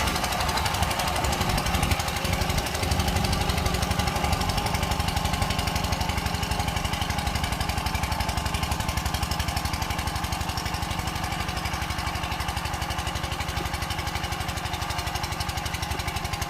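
Walk-behind power tiller's single-cylinder diesel engine running steadily with a rapid, even chug while it tills the soil.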